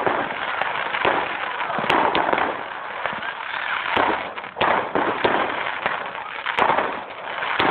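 Aerial fireworks bursting, a dense run of bangs and crackling stars with sharp reports scattered throughout.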